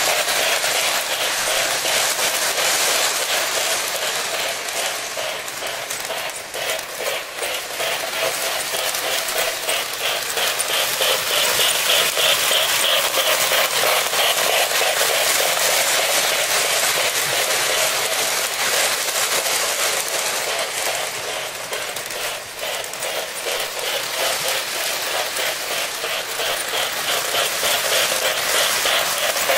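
Lionel O-gauge Hudson steam locomotive and its passenger cars running on FasTrack track: a steady rolling rattle with a fast, even clatter, dipping in loudness twice as the train goes round the loop.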